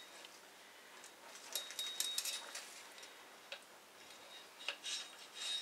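Faint, scattered light clicks and taps of small tools being handled at an open motorcycle fork tube, in two short clusters about one and a half seconds in and near the end.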